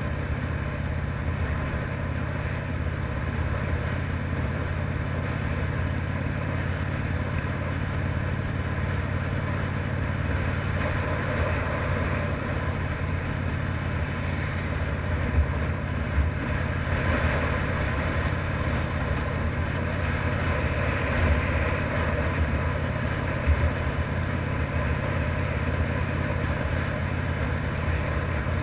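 Harley-Davidson FXRDI motorcycle's V-twin engine running steadily under way, with a low, pulsing exhaust note and road and wind noise.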